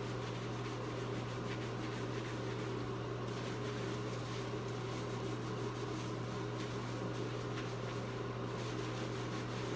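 Steady mechanical hum, like a fan or ventilation unit, running evenly throughout. Under it is a faint rustle of fingers scrubbing shampoo into hair.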